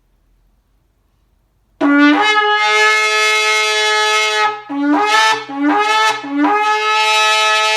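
A large 51-to-52-inch shofar (ram's-horn trumpet) being blown. After a short silence it gives one long blast, then three shorter ones, the last held long; each blast starts on a low note and breaks up to a higher one.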